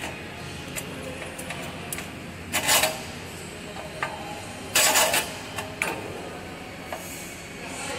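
Light metal clinks and rubbing as hands work the stainless-steel guide plates and feed chute of a flow wrapping machine, with two short, louder scraping bursts near the 3 and 5 second marks over a steady background hum.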